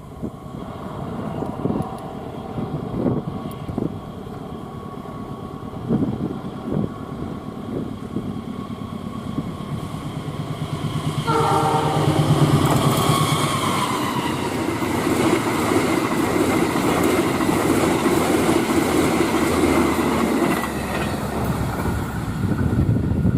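Passenger train approaching and passing at high speed. Its horn sounds about 11 seconds in, then the wheels clatter loudly over the rails as the train rushes by.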